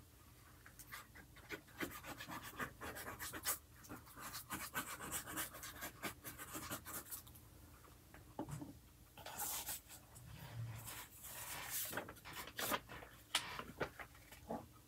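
Glue stick rubbed across paper in quick short strokes, faint scratching and rubbing, through about the first seven seconds. From about nine seconds in come a few louder paper rustles as sheets are lifted and handled.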